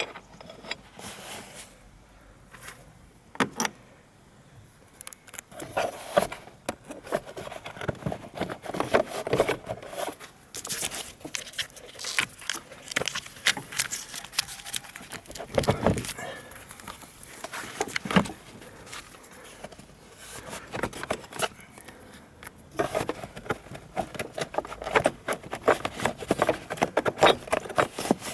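Metal hand tools clinking and rattling against the battery fittings of a car: a socket wrench at work on the battery clamp bolts, in irregular clicks with busy runs of rapid clinking.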